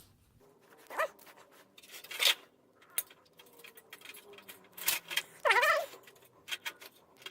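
Scattered clicks, rattles and light scrapes of parts being handled inside a dismantled CRT television, with a brief squeak a little past halfway.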